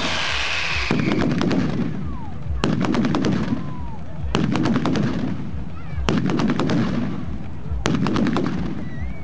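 Mascletà firecracker barrage: about five volleys of rapid sharp bangs, each a second or less long and coming every couple of seconds, with a low rumble between them.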